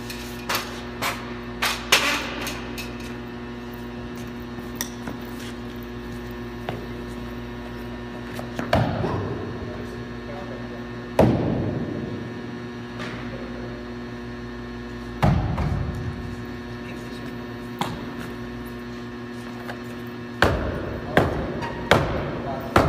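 Irregular knocks and bangs on insulated cold-room wall panels as workers fit them into place, a few heavier blows with a short ringing tail, over a steady electrical hum.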